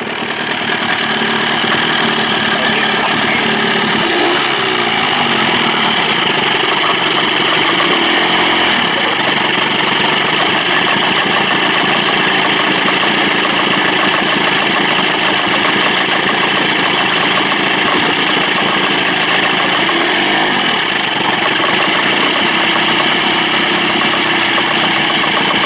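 Johnson 25 hp two-stroke outboard motor idling steadily, running smoothly without the lean sneeze now that the clogged slow-speed needle circuit has been cleared.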